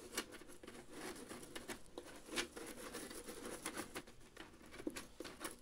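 Granular activated charcoal shifting and crunching inside a mesh bag as hands press and spread it into a fume extractor's filter tank, with the mesh rustling. It is an irregular patter of small clicks, the sharpest a little over two seconds in.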